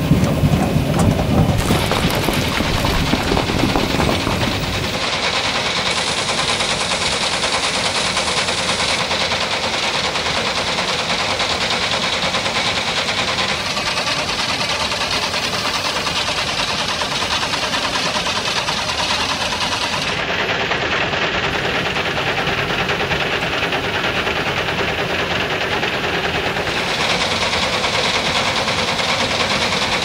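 Small electric motors running a miniature conveyor belt and vibrating sieve, with a steady dense rattle of pebbles and sand shaking over the mesh. The mix of the noise shifts several times.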